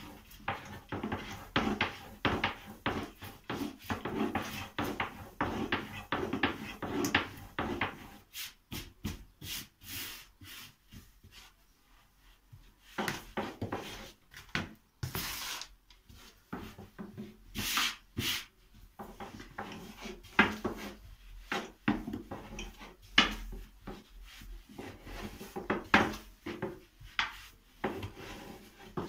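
Long thin wooden rolling pin (oklava) rolling and knocking on a round wooden board as thin dough sheets are rolled out: runs of quick wooden clacks and rubbing. The clacks thin out in the middle and pick up again later.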